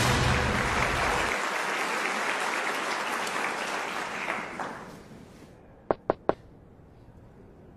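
Audience applauding, with the last of the music under it stopping about a second in; the applause fades out after about five seconds. Then three quick sharp clicks.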